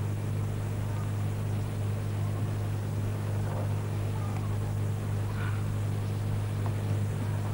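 A steady low electrical hum with hiss above it: the background noise of an old videotape soundtrack.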